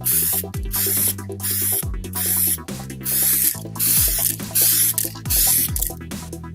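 Aerosol spray can of paint hissing in short bursts of about half a second, roughly one a second, while the car's air-conditioning vent louvres are painted. Electronic background music with a kick drum plays underneath.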